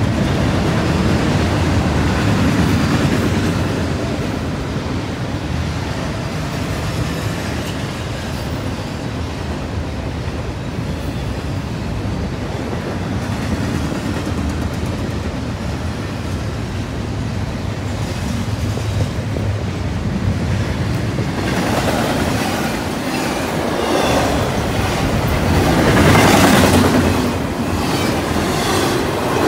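Double-stack intermodal freight cars rolling past on the rails with a steady rumble of wheels on track. In the last several seconds, nearer the track, the clickety-clack of the wheels gets louder and sharper.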